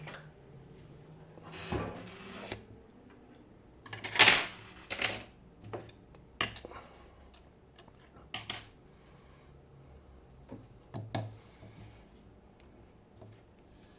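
Small metal parts and tools being handled on a lock: scattered clicks and metallic clinks, with a louder clatter about four seconds in and a few more knocks after it.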